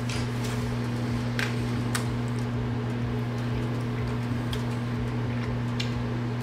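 Steady low electrical hum from a kitchen appliance, with a few light clicks of a plastic fork against a plastic meal tray while a man eats.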